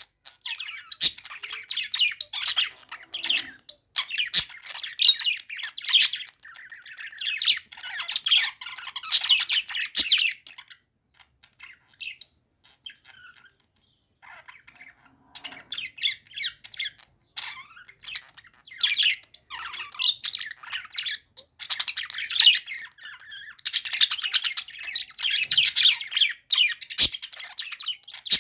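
Budgerigars chirping and chattering in quick, squawky bursts. The chatter dies down for a few seconds near the middle, then picks up again.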